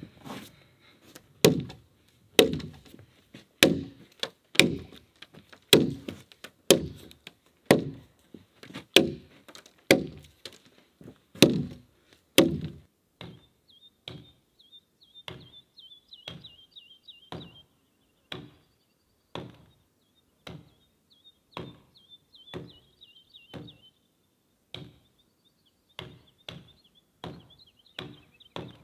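Axe blows chopping into a peeled log, scoring a row of notches along its top, about one stroke a second. The strokes turn quieter about halfway through and keep the same pace.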